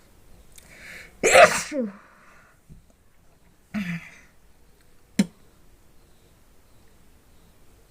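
A woman sneezing: a quick breath in, then one loud sneeze about a second in, with a falling vocal tail. Two shorter, quieter bursts follow near four and five seconds in. The sneezes are set off by tickling the inside of her nose with a cotton bud.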